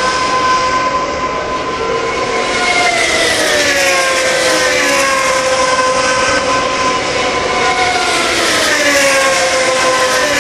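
GP2 race cars' 4.0-litre V8 engines howling at racing speed, several cars together. Their engine note slides down in pitch twice as cars pass.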